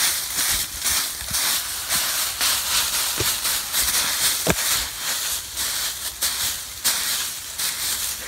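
Dry fallen leaves rustling and crunching loudly as a leaf pile is dug into and flung about by hand, in quick repeated rushes.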